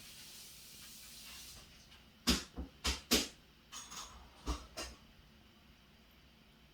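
A steady high hiss, the strange noise from the laptop, stops about a second and a half in. About a second later comes a quick cluster of six or seven short knocks and scuffs against the laptop.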